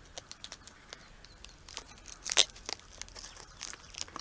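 A plastic bag of cat treats crinkling and rustling as it is handled, a run of short sharp crackles with the loudest about halfway through.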